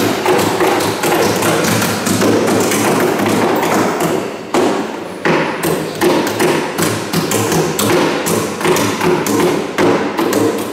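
Hammers striking timber in the building of a wooden king boat: many overlapping knocks and thuds in an irregular stream, several a second.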